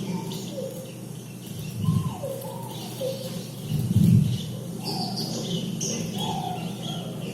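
Birds chirping and calling, with short falling calls repeating every second or so and higher chirps over them. Two low thumps come about two and four seconds in.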